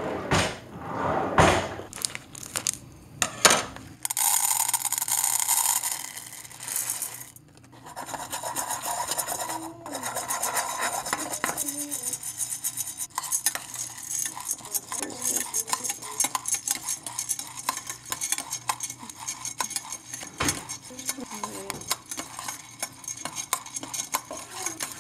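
Green coffee beans rattling and scraping in a small stainless-steel saucepan, shaken and stirred over the heat to roast them: a dense, fast clatter that sets in a few seconds in and keeps going. Before it come a few knocks and rustles, with the plastic bag of beans being handled.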